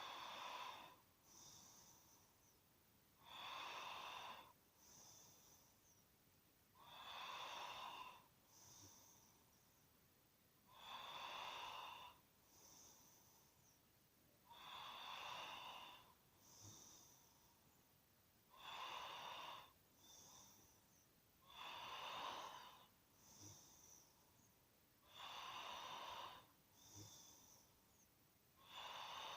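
A person snoring in a slow, even rhythm: a louder snoring breath about every three and a half to four seconds, each followed by a shorter, softer breath. The whole is quiet.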